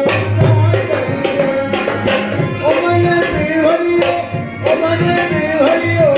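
Music: a hand drum beating a steady rhythm under a wavering, ornamented melody line.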